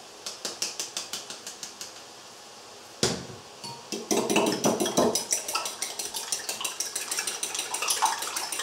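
A hand spice grinder clicking as it is twisted over a bowl of eggs, then a spoon beating raw eggs, clinking quickly and evenly against the ceramic bowl.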